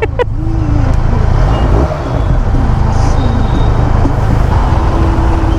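Benelli TRK 502's parallel-twin engine running under a rider at slow speed, with the rumble of surrounding road traffic.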